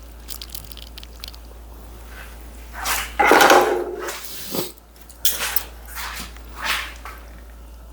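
Kitchen handling sounds of a bowl and utensils: a few light clicks, then a loud scrape or clatter of about a second starting about three seconds in, followed by several short knocks.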